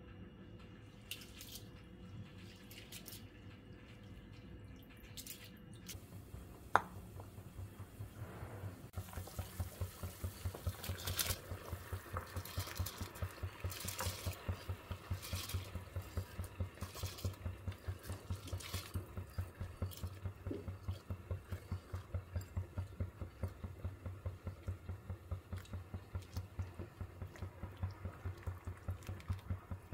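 Soaked rice swished and rinsed by hand in a bowl of water, then tipped into a steel pot of boiling water with a few splashes and scrapes, and stirred with a spatula. A low rhythmic pulsing runs under it from about nine seconds on.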